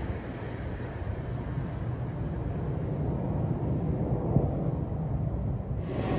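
Steady low outdoor rumble with a faint hiss over it, the background hum of a city at night. About six seconds in it turns brighter and a little louder.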